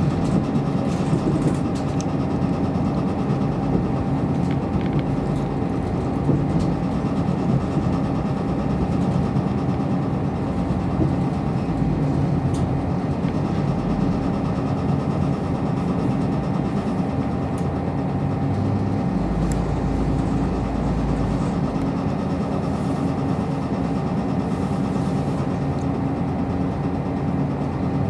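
Cabin sound of a KiHa 54 diesel railcar under way: a steady drone from its diesel engine over the rumble of wheels on the rails. Near the end it comes to a stop at a station.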